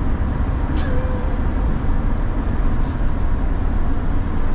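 Steady low rumble of engine and road noise inside a vehicle's cab while driving, with a faint click just under a second in.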